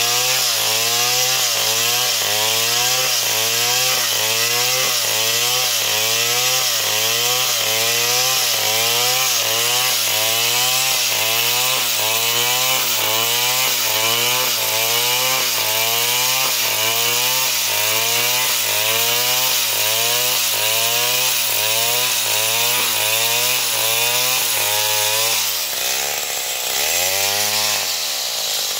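Stihl chainsaw running at full throttle, cutting lengthwise along a palm log, its engine pitch rising and sagging about one and a half times a second as the chain bites and frees. Near the end the engine drops away, then rises and falls once.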